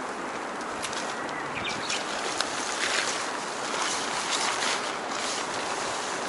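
Steady wind noise with a few short rustles and taps, from a pop-up tent being handled during setup.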